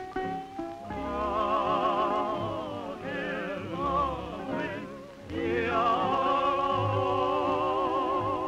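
Dramatic background film-score music: long held notes with heavy vibrato, dipping briefly about five seconds in and then swelling again.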